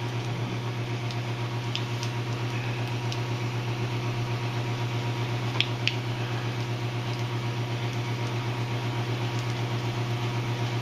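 Belt grinder running steadily with a leather honing belt: a motor hum with a fast, even pulse and a steady hiss of the belt, with two light ticks about halfway through.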